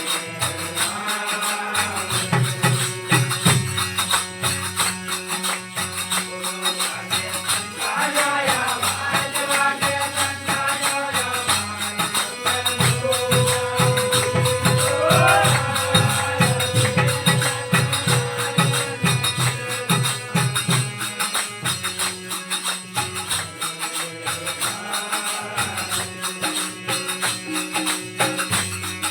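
Devotional aarti music: fast, steady jingling percussion under a melody line.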